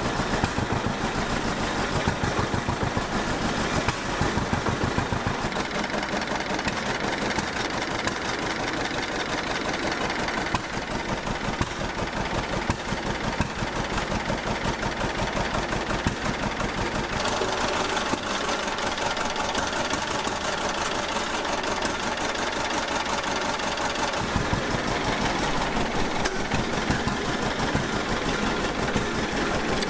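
John Deere B's two-cylinder engine running steadily, a continuous run of even pops. The owner judges the engine pretty tired, though it runs decent.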